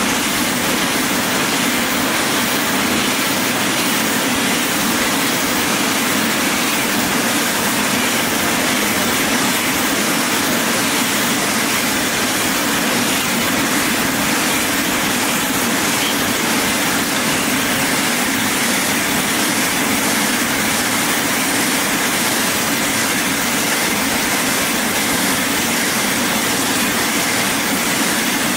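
Rotary bottle-filling machine running: a steady, even mechanical hum and hiss with no separate clanks or pauses.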